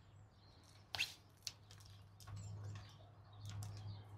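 Quiet garden background with a few brief bird chirps, the clearest about a second in, over a low hum that swells twice in the second half.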